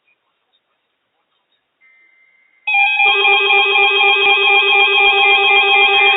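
Near silence, then about three seconds in a loud electronic melody of steady, ringtone-like tones starts abruptly and carries on.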